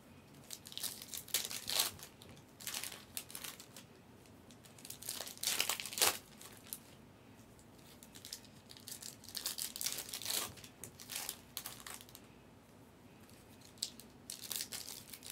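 Foil wrappers of Optic basketball hobby packs being torn open and crinkled by hand. The sound comes in separate bursts of tearing and crackling with quieter gaps between, the loudest about six seconds in.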